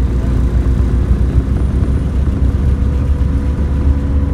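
Car driving along a road, heard from inside the cabin: a steady low rumble of engine and tyres with a faint steady hum over it.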